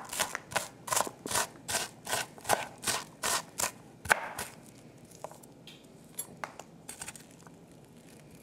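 Kitchen knife chopping onion on a cutting board, in quick regular chops about four a second that stop about four seconds in, followed by a few light scattered taps.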